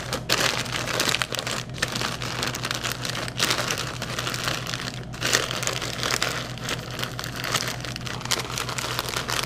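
Plastic snack packaging crinkling and rustling as it is handled, a dense run of crackles that goes on throughout.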